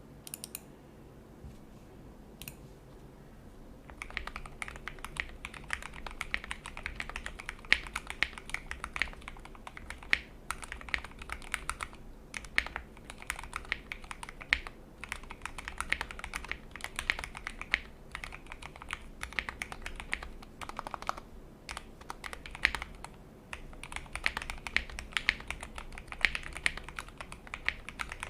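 Custom Tofu65 mechanical keyboard with Krytox-lubed Tealios V2 linear switches, a polycarbonate plate, PBT keycaps and foam-dampened case being typed on. A couple of single keystrokes come first, then steady fast typing from about four seconds in.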